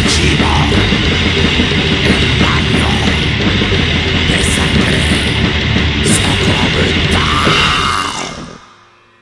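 Grindcore band's demo recording: distorted guitar, bass and drums playing at full tilt with sharp cymbal-like hits, then the song stops about eight seconds in and rings out, leaving a faint amplifier hum.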